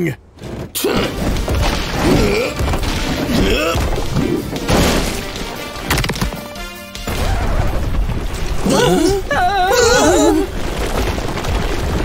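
Cartoon action music under crashing and booming sound effects of a landslide, with a heavy low rumble from about seven seconds in.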